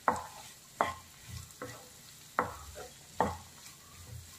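A wooden spatula scrapes and knocks against a non-stick frying pan as chopped spring onions are stirred. There are five sharp strokes a little under a second apart, with lighter scrapes between them.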